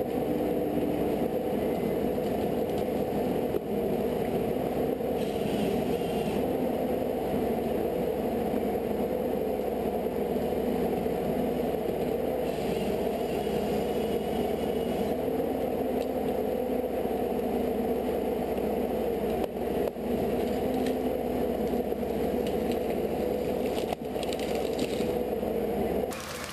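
A machine's engine running steadily, with a few short stretches of higher scraping noise laid over it, about five, thirteen and twenty-four seconds in.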